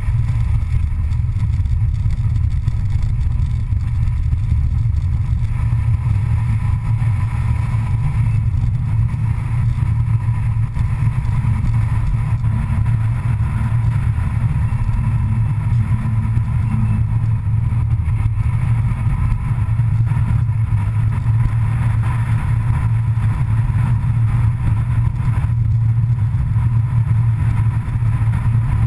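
Steady low rumble of a vehicle driving at speed, picked up by a camera mounted low on the outside of the vehicle, close to the road.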